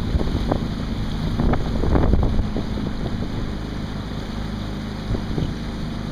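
Strong wind buffeting the microphone aboard a Topper sailing dinghy, with a few short splashes of water, most of them in the first half.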